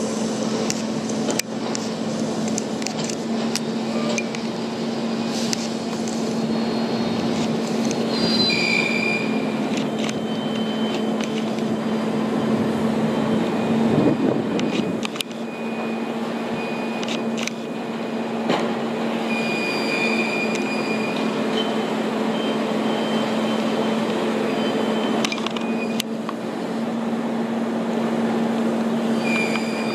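Heavy construction machinery working on a foundation site: a steady diesel engine hum, with short high metallic squeals and clanks at intervals. A brief louder swell comes about halfway through.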